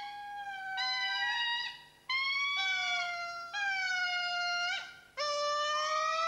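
Indri lemur singing: a series of long, loud, drawn-out notes, each about a second long, most sliding slightly down in pitch, with a couple of brief breaks between phrases.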